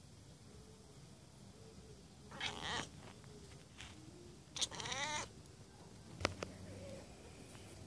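Siamese cat chattering at dragonflies: two short bursts of chatter about two seconds apart, the second longer and quavering. A sharp click follows about six seconds in.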